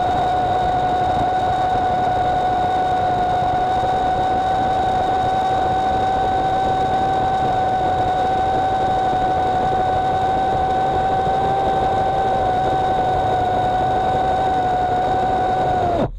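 EGO CS1800 battery-powered electric chainsaw running flat out with its chain cutting through a large tree trunk, a steady high whine over the rasp of the chain. Near the end the whine sags a little and stops suddenly as the saw winds down.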